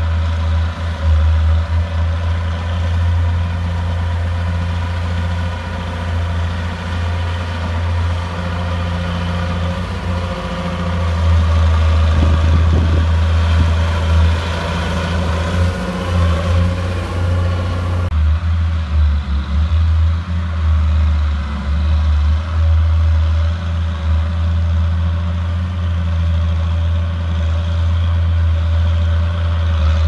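Diesel engine of a D31 crawler bulldozer running steadily while it pushes dirt. About eighteen seconds in, the sound changes abruptly as its higher part drops away.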